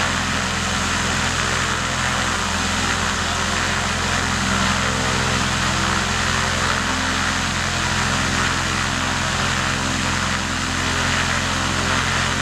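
Piston engine and propeller of a single-engine light aircraft running steadily at idle on the ground while it prepares for take-off.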